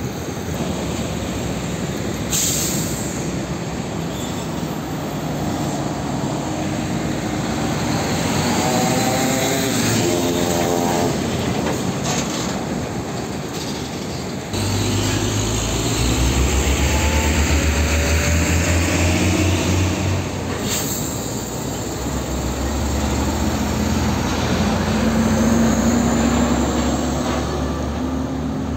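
Heavy diesel trucks, among them a fuel tanker semi-trailer, driving past with engines running and tyre noise. A deep engine drone from a truck close by sets in about halfway through, and an engine rises in pitch as it accelerates near the end.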